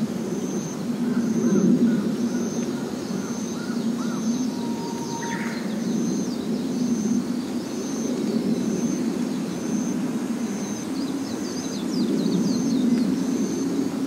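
Evening forest-pond ambience: a steady low rumble, with a high short note repeating evenly about every two-thirds of a second and birds chirping now and then, the chirps busier near the end.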